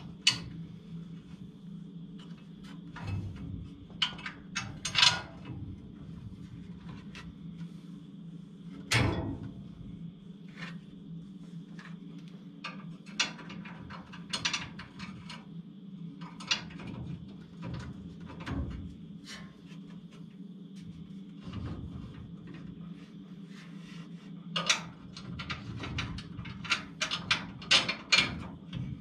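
Scattered metal clinks, knocks and rattles of a car's front bumper and nose assembly being held up against the front end while carriage bolts and washer nuts are started by hand. A quick run of clicks comes near the end, over a steady low hum.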